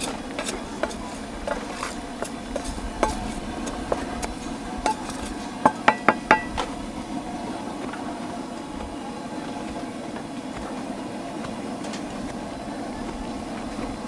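Metal scraper paddle scraping and clicking through uncooked glutinous rice in a wooden steamer bucket, with a quick run of four or five loud, sharp metallic knocks about six seconds in. After that it is quieter, over a steady low hum.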